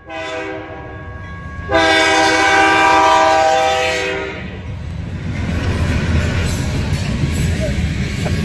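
BNSF freight locomotive's air horn sounding a chord, much louder from about two seconds in and cutting off about four seconds in. Then the low rumble of the locomotive and freight cars rolling across the crossing.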